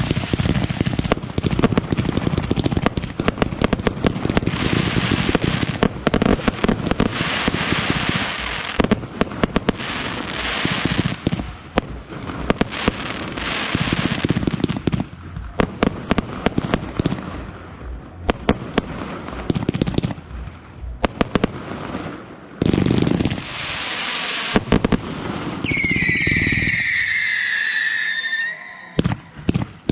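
Fireworks display: a dense, rapid barrage of bangs and crackling shell bursts, with several falling whistles near the end.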